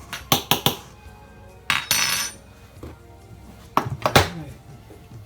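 Metal clinks and knocks of a stovetop moka pot being handled: a few quick clinks, a scraping rub about two seconds in, then more clinks near the end. Faint background music runs underneath.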